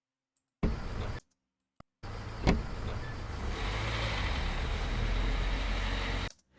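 Car sound effects: a short burst and a sharp click, then a steady low car rumble lasting about four seconds, with a click from a car door handle about two and a half seconds in.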